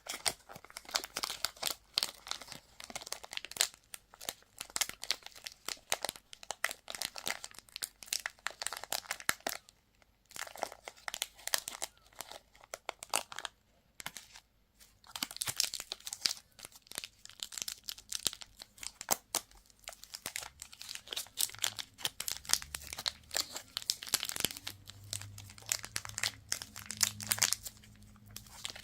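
Wrappers crinkling and tearing in dense, rapid crackles as lollipops and surprise eggs are unwrapped, broken by a couple of brief pauses.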